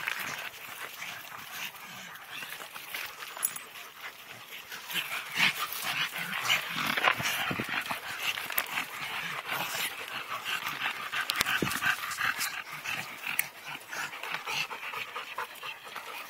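Dogs panting close by, in quick repeated breaths, with scattered sharp clicks.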